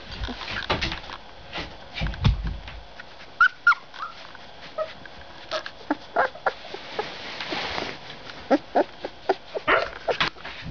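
Very young puppies whimpering and squeaking in many short, high calls, with rustling and handling noise and a low rumble about two seconds in.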